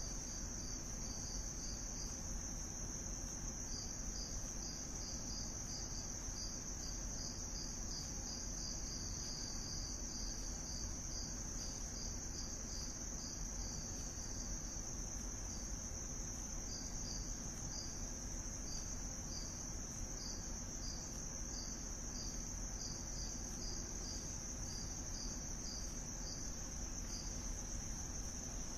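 Crickets chirping: a steady high trill with a second, pulsed chirp of a few chirps a second just below it, over a low steady hum.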